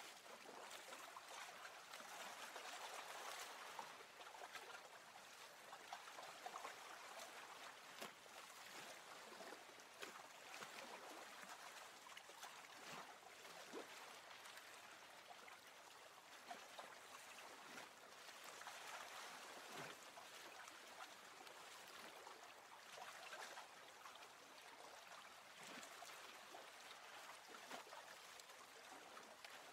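Faint water lapping and trickling, swelling and easing in slow waves, with small sharp drips and clicks scattered through it.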